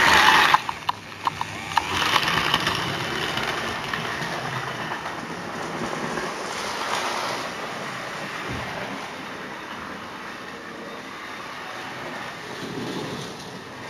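Model steam locomotive running past close by on the track, its motor and wheels whirring loudly, with a few sharp clicks over the rail joints about a second in. Its running sound then goes on more quietly and slowly fades as the train moves away around the layout.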